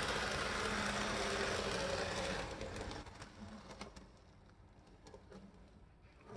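Z scale AZL GP9 locomotive's tiny electric motor whirring as it runs along the track. The whir drops off sharply between two and three seconds in, and a few light clicks follow as it eases up to the cars.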